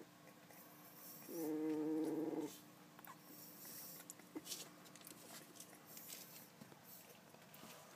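Three-week-old West Highland White Terrier puppy giving a short, high-pitched growl about a second in, lasting just over a second. The rest is faint rustling and small clicks.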